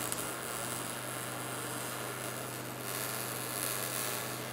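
Electric arc welding: the arc hisses and crackles steadily over a low, even hum.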